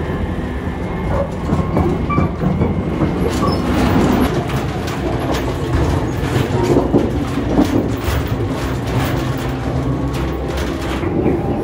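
Running noise of the Nankai Rapi:t limited express (50000 series electric train) at speed, heard from inside the train: a loud, steady rumble with many short clicks and rattles.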